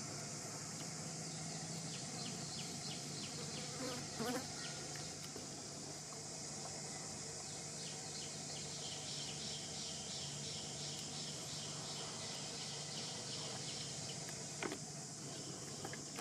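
Steady outdoor insect chorus, a constant high hiss with a rapid pulsing insect chirp layered in twice. A short, louder sound breaks in about four seconds in, and there is a brief click near the end.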